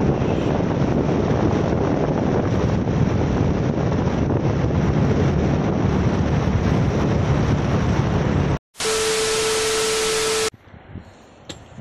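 Wind rushing over the microphone of a motorcycle riding at speed, with a low engine drone underneath. About eight and a half seconds in it cuts off, and a TV-static glitch effect with a steady beep tone follows for under two seconds.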